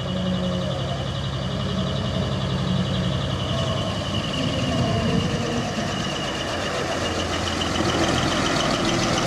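Diesel engine of a decorated dekotora truck running as it drives slowly past at low speed. A high, rapidly pulsing beep grows louder from about four seconds in.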